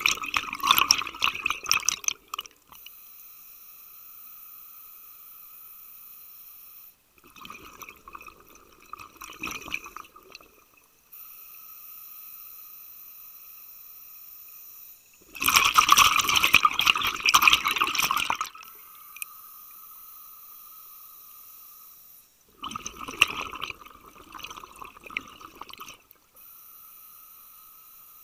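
Scuba regulator exhaust underwater: exhaled air bubbles out in four bursts of about three seconds, one every seven to eight seconds, the rhythm of a diver's breathing. A faint steady hum fills the gaps between breaths.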